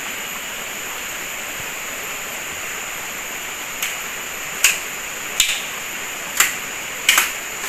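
Steady rushing of river water, with about six sharp knocks from about four seconds in as a bamboo pole is being cut.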